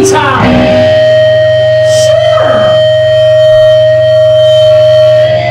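Live band music led by guitar: a single note held for about five seconds over a steady low drone, with a pitch sliding down about two seconds in.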